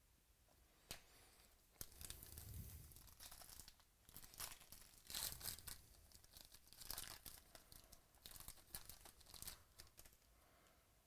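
A foil trading-card pack wrapper being torn open and crinkled by hand: faint, short crackling tears and rustles that start about two seconds in and die away near the end.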